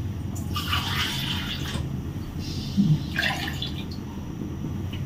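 Coconut milk poured from a measuring cup into a frying pan, splashing in twice.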